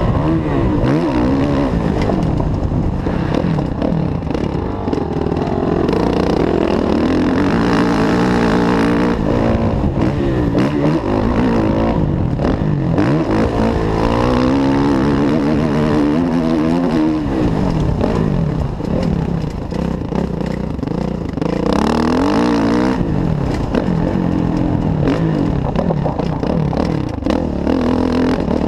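Kawasaki KX450F's single-cylinder four-stroke motocross engine heard from on the bike, revving up and falling back again and again as the rider accelerates, shifts and rolls off along a dirt track.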